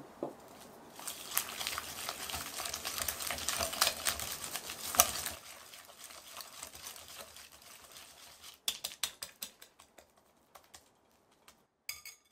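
Ingredients being stirred and scraped in a bowl with a kitchen utensil: a dense crackly scraping for about four seconds, then a run of light clicks and taps near the end.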